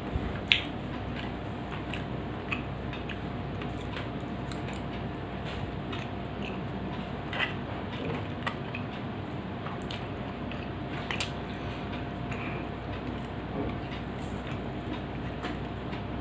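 A person chewing a mouthful of macaroni, with scattered small clicks and a few sharper ones, over a steady background hiss.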